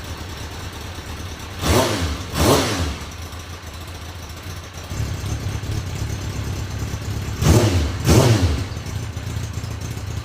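Kawasaki Ninja 636's inline-four engine idling and blipped twice in quick succession about two seconds in, then twice again near the end, each blip rising sharply in pitch and falling back to idle. The idle grows louder about halfway through.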